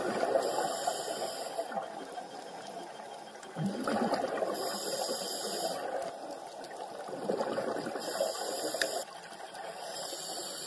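Scuba diver breathing through a regulator underwater: a hissing inhale about every four seconds, three times, each followed by a bubbling exhale.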